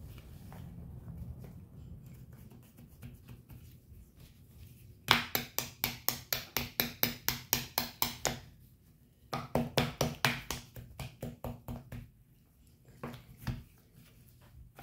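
Rapid, even clicking, about six clicks a second, in two runs of about three seconds each with a short pause between. It comes from a plastic toy dentist kit being handled, with softer handling noise before the clicking and a few single clicks after it.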